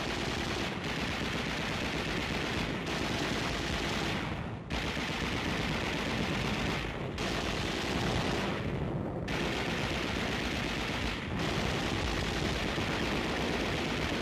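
Sustained rapid machine-gun fire, a dense unbroken rattle of shots with a few brief breaks.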